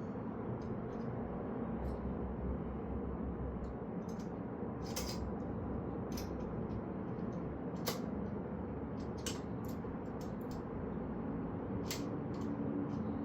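Scattered light clicks and taps of bicycle parts and tools being handled during assembly, over a steady low hum.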